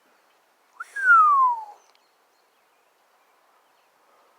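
A single loud, clear whistle about a second in, starting with a brief upward flick and then sliding steadily down in pitch for just under a second.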